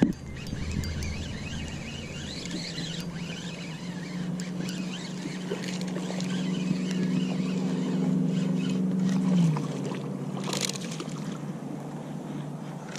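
A motor hums steadily, growing louder, then drops in pitch and winds down about nine and a half seconds in. Birds chirp over it in the first few seconds, and there is a sharp click near the end.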